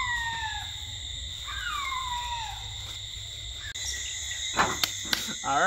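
Evening insect chorus of crickets, a steady high trilling, with a falling call heard twice in the first half, each about a second long. Two short knocks come about four and a half and five seconds in.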